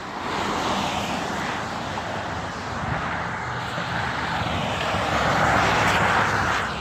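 A steady rushing vehicle noise that swells in the last couple of seconds, then falls away.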